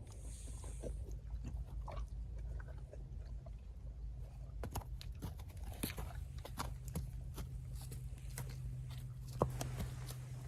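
A horse chewing and crunching a feed of apple pieces and oatmeal, in irregular crunches, over a steady low hum.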